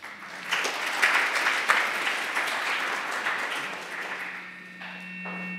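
Audience applauding, which builds quickly and then fades away over the last couple of seconds. A steady hum is left near the end.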